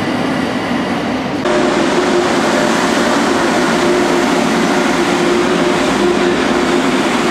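Frecciarossa high-speed electric train running slowly past a platform, a steady rumble with a hum on top. About a second and a half in, the sound cuts abruptly from other train noise to this louder running sound.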